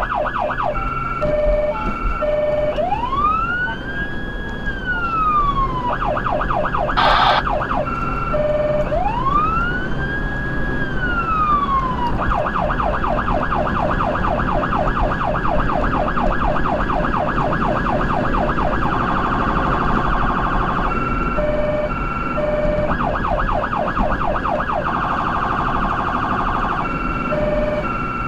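Federal Signal Touchmaster Delta electronic siren sounding through its two 100-watt speakers, switched every few seconds between tones: a two-note hi-lo, a slow rising and falling wail, a rapid yelp and a faster warble. A brief harsh horn-like blast cuts in about seven seconds in.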